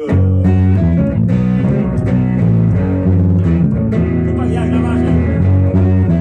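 Electric bass and electric guitar starting a riff together, played live in a small rehearsal room. The deep bass notes are loudest and change in an even rhythm.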